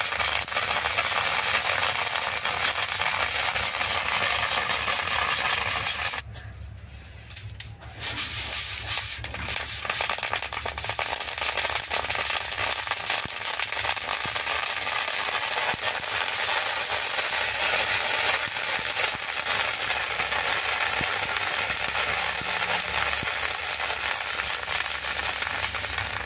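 Water lily seeds popping in a hot metal wok as they are stirred: a dense, steady crackle of many small pops. The crackle drops away for about two seconds around six seconds in, then resumes.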